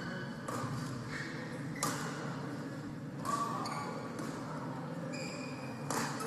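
Badminton shoes squeaking briefly on the court floor, with a few sharp taps and thuds echoing in a large sports hall.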